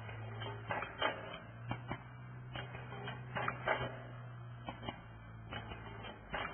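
Spoon-wrapping and sealing machine for tamarind candy spoons running: a steady low motor hum under irregular mechanical clacks, about one or two a second, as its mechanism cycles.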